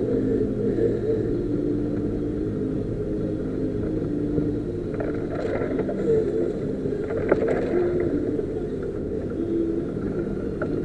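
4x4's engine running steadily at low revs while driving slowly along a rough unsurfaced lane, heard inside the cab. A few short knocks and rattles from bumps in the track come about halfway through.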